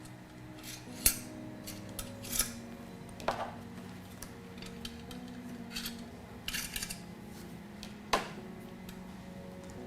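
Thumb screws and metal prongs on a barbecue draft blower being loosened and handled: scattered small clicks and scrapes, half a dozen over several seconds, over a faint steady hum.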